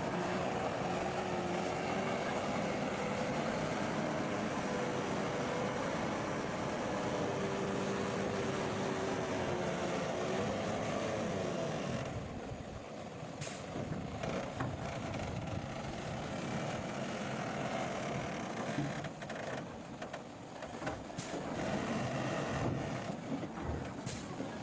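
Bulldozer's diesel engine working hard, its pitch wavering. About halfway through it drops to a lower, quieter running, with a few sharp knocks.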